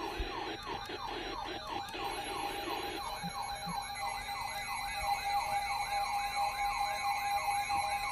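Electronic siren alarm of a weather alert radio going off for an incoming warning: a fast rising yelp that repeats about three times a second over a steady tone.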